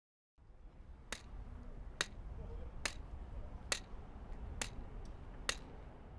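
Footsteps of hard-soled shoes on pavement at a slow, even walking pace, six sharp clicks a little under a second apart, over a low steady rumble of street ambience that fades in just after the start.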